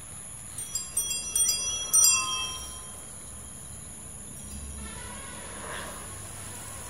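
Bicycle bell rung several times in quick succession, with bright ringing strikes over about two seconds near the start.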